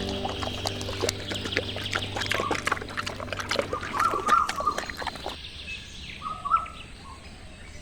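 Ducks quacking in a busy run of short calls for about five seconds, then fainter with only a few calls.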